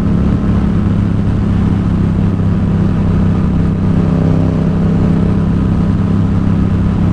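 Yamaha XSR700's 689 cc parallel-twin engine running at a steady cruise through a Two Brothers SR1 aftermarket exhaust, its pitch holding constant.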